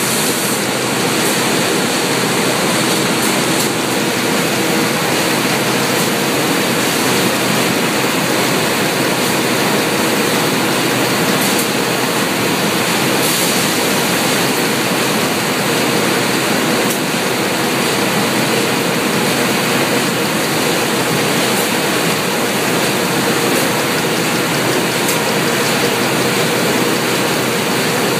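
Steady, loud rushing noise of factory machinery on a robotic box-handling and roller-conveyor line, with a faint constant hum and a few faint clicks.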